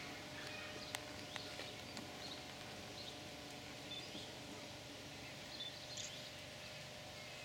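Faint outdoor ambience: a steady background hum with scattered short, high chirps and a few light clicks.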